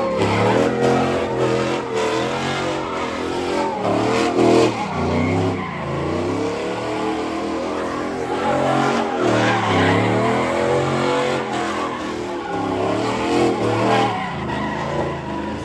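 Car engine revving hard, its pitch rising and falling over and over, with tires squealing as the car spins donuts or does burnouts.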